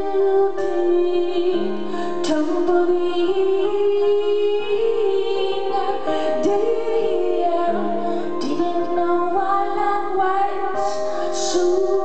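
A woman's solo voice singing live over a grand piano, with long held notes that bend in pitch.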